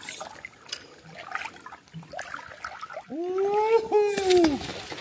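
Water trickling and splashing, then about three seconds in a loud, long call in two parts, each rising and then falling in pitch.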